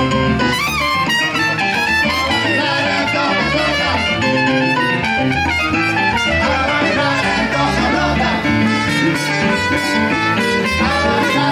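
Live Latin dance band playing an upbeat salsa-style tune with brass and guitar over a steady beat.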